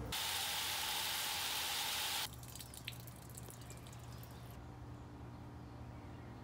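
A steady hiss like running water or spray for about two seconds, cutting off suddenly. It is followed by a quieter outdoor background with a few light ticks.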